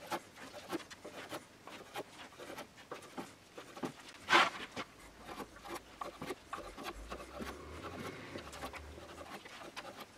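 Long knife cutting a sponge cake base into strips and small cubes on a wooden cutting board: repeated soft slicing strokes and light taps of the blade against the wood, with one louder knock about four seconds in.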